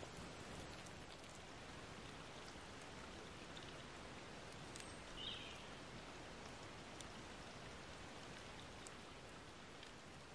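Faint, quiet woodland ambience: a soft steady hiss with scattered light ticks, and one short, faint high chirp about five seconds in.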